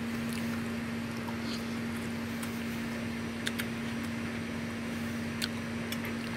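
Steady machine hum over a low hiss, with a few faint short clicks about halfway through and near the end.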